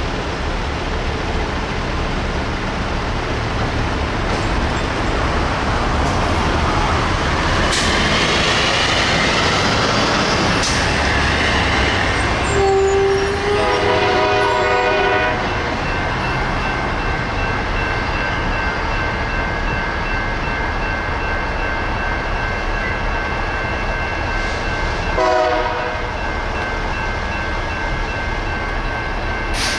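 Diesel freight locomotive horn sounding a chord as the train approaches a road crossing: a long blast about halfway through and a short blast near the end, over steady road-traffic noise. A steady high ringing tone carries on after the first blast.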